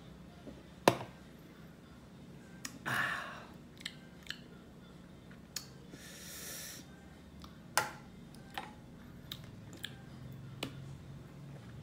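Tabletop handling noises: a sharp knock about a second in, then scattered small clicks and taps as a beer can and a plastic sauce bottle are picked up and set down. A breathy exhale comes around three seconds, and a short hiss near six seconds.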